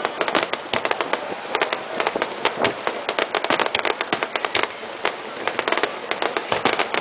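Fireworks crackling: a dense, continuous run of many rapid small pops and sharp reports.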